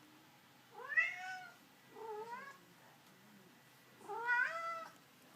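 Domestic cat meowing three times, each call rising then falling in pitch; the first and last are the loudest. It is the excited chattering meow of a cat watching a bird outside.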